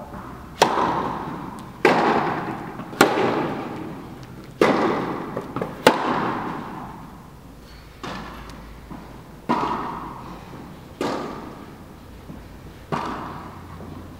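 Tennis balls being struck in a rally, about nine sharp hits and bounces at intervals of one to two seconds, each echoing in a large indoor tennis hall.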